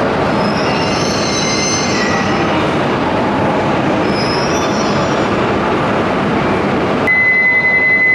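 Coupled H5 and E6 series Shinkansen train (Hayabusa + Komachi) running along the platform: a dense, steady rushing of wheels and running gear with faint high squeals. About seven seconds in, a steady high-pitched beep starts over it.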